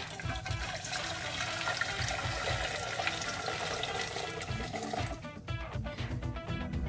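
Freshly boiled water poured from a glass electric kettle into an empty stainless steel pot: a steady splashing pour that stops about five seconds in. Background music plays underneath and is left on its own after the pour.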